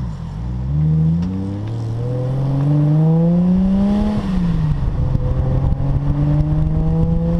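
Nissan RB26 twin-turbo inline-six engine in a 240SX accelerating hard: its pitch climbs, drops briefly about a second and a half in, climbs again for a few seconds, falls away about four seconds in, then holds and slowly rises again.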